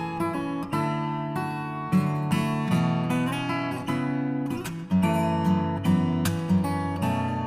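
Background music: acoustic guitar strumming chords that change about once a second.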